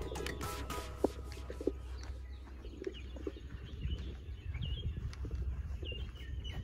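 Small birds chirping in short, repeated high calls, with a few sharp knocks in the first couple of seconds and a low steady rumble underneath.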